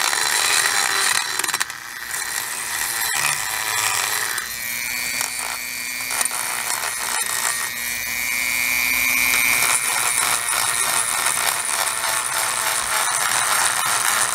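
Handheld rotary tool running at high speed, its small abrasive wheel grinding and polishing cast bronze with a gritty rasp. A steady high whine rises out of the noise for several seconds in the middle.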